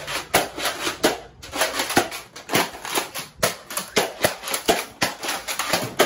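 Nerf foam-dart blasters being primed and fired over and over, a rapid run of sharp plastic clacks, several a second.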